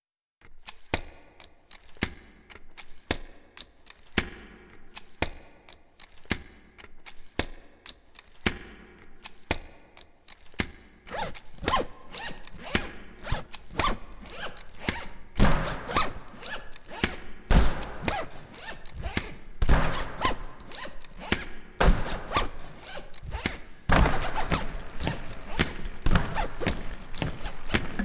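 Rolling suitcases being handled, their handles and zippers clacking and rasping in a steady rhythm of about two knocks a second. After about eleven seconds the knocks come thicker and louder.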